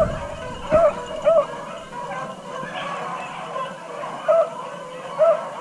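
Beagles baying on a cottontail rabbit's trail, the hounds giving tongue as they run the scent. There are about five short, bright yelps: three in the first second and a half, then two more near the end.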